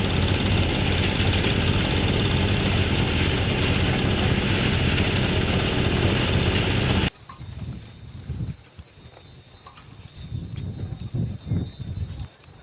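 Farm machine engine running steadily, cut off abruptly about seven seconds in; after it, quieter scattered low thuds.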